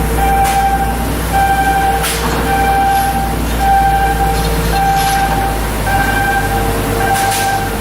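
A repeating electronic warning beep, one steady tone of about the same length sounding roughly once a second, over a constant low machinery hum, with a few faint clicks.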